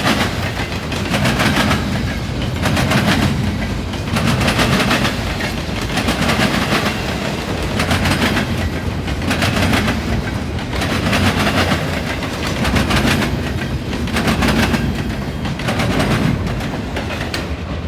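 Intermodal freight train passing at speed, its wheels hammering over diamond rail crossings. The sharp bangs come in loud clusters that repeat about every one and a half to two seconds, one cluster for each set of wheels.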